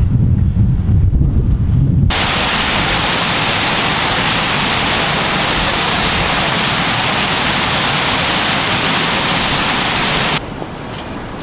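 Low wind rumble on the microphone, then about two seconds in a sudden change to the steady rush of water cascading down a stepped stone water feature, which stops abruptly near the end.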